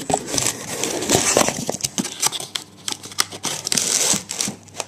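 Rustling, crinkling handling noise with many scattered sharp clicks and knocks, which stops shortly before the end.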